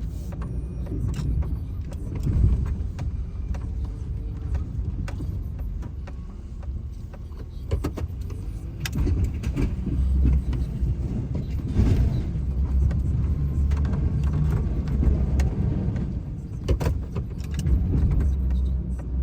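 Plow truck running while pushing snow, a steady low engine rumble that gets louder about halfway in, with scattered clicks and knocks.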